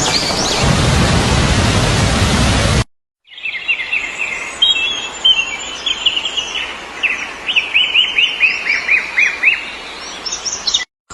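Steady rain with small birds chirping over it; after a brief cut, a songbird singing runs of quick, downward-sweeping chirps over a faint background hiss.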